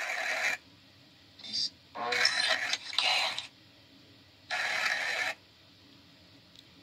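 Four short bursts of whispery, voice-like sound, each under about a second and a half, separated by near silence.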